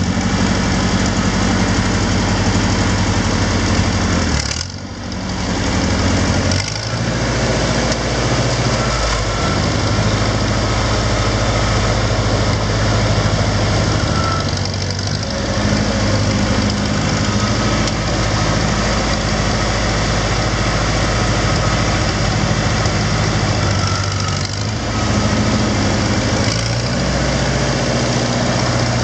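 Ford 960 tractor's four-cylinder engine running steadily as the tractor drives. The note dips briefly a few times: about four and a half and seven seconds in, and again near the end.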